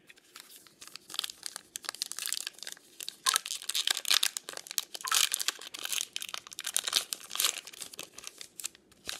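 Plastic wrapper of a baseball card pack being torn open and crinkled by hand, a dense crackling that grows louder about three seconds in and dies away near the end.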